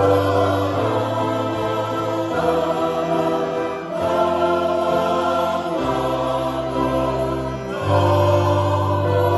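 Mixed choir of men's and women's voices singing slow, held chords, accompanied by electronic keyboard and bandoneón. The low notes change every couple of seconds.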